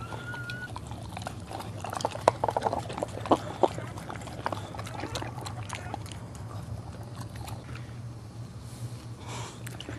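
Boxer mother licking and chewing at her newborn puppy and its birth sac: wet smacking and slurping sounds, densest and loudest two to four seconds in. A short high squeak comes right at the start.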